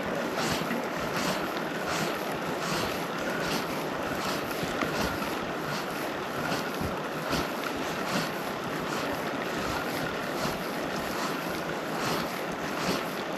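Steady rush of water with wind on the microphone, and a soft regular stroke about every two-thirds of a second.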